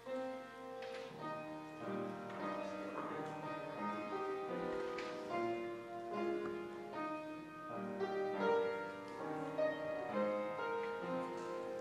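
Slow instrumental music on a keyboard instrument: a melody over held chords.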